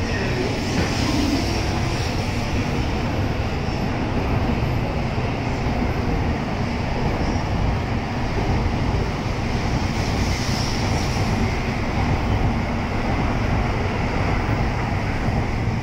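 N700A-series Shinkansen train pulling out of the platform, its cars running past at rising speed with a loud, steady noise of wheels on rail.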